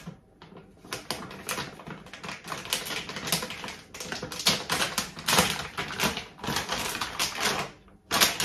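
Kitchen handling noise: a rapid, irregular clatter of small knocks and rustles, quieter for about the first second.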